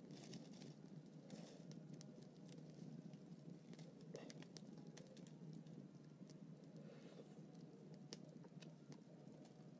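Faint crackling of an open wood fire: scattered sharp pops and snaps over a low steady rush.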